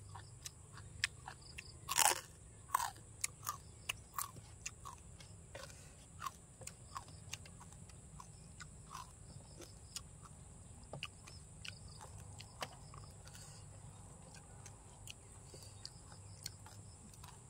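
Close-up chewing of crispy pork belly with long-bean salad: irregular crisp crunches, most frequent in the first half and thinning out later.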